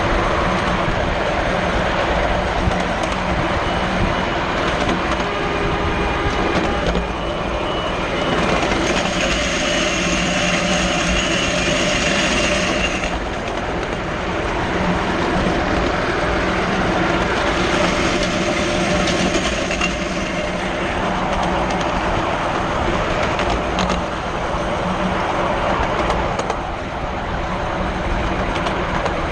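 Wheels of a 7¼ inch gauge miniature railway train running along the track: a steady rumble and rattle of the wagons rolling on the rails, with a higher ringing twice, for a few seconds each.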